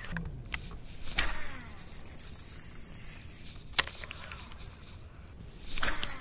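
Fishing rod and baitcasting reel being handled: a few sharp clicks, the sharpest about four seconds in, then a louder rush near the end as the topwater lure is cast.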